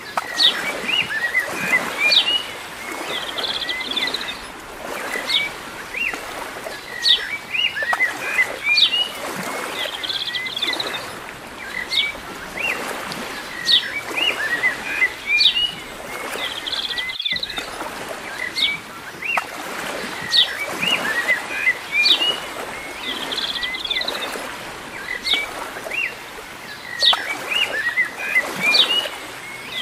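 Small birds chirping and twittering, many short high calls and quick trills repeating throughout over a soft background hiss; the sound cuts out for an instant about 17 seconds in.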